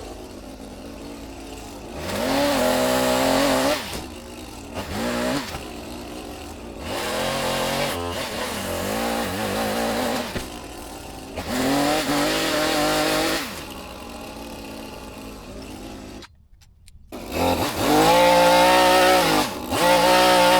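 Small two-stroke engine of a handheld power cutting tool, revving up to full speed and dropping back to idle again and again. It goes almost silent for a moment about three-quarters of the way through.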